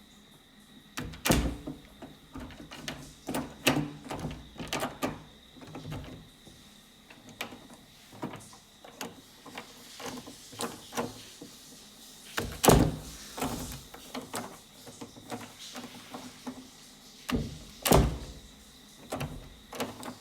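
A door being opened and shut over and over: a run of handle and latch clicks, knocks and rattles, with three heavier shutting thuds, about a second in, about two-thirds through and near the end.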